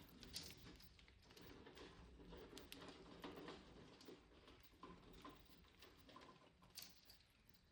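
Faint budgerigar sounds: scattered small clicks and a few soft chirps.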